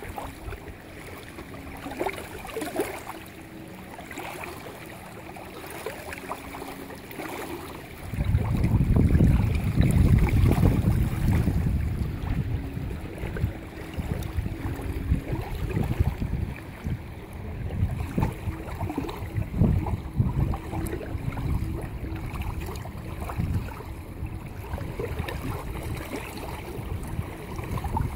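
Wind buffeting the microphone, much stronger for a few seconds from about eight seconds in, over small waves lapping.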